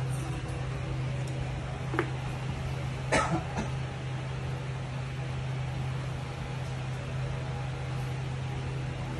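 Husky puppy giving a brief yelp in a short cluster about three seconds in while playing, over a steady low hum; a single click comes just before.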